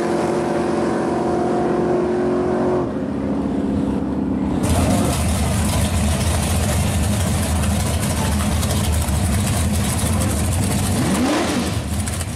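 Drag race cars running at a steady pitch far down the strip near the end of a pass. Then, after a cut about 4.6 s in, race engines idle loudly and roughly at the starting line, with a quick rev that rises and falls near the end.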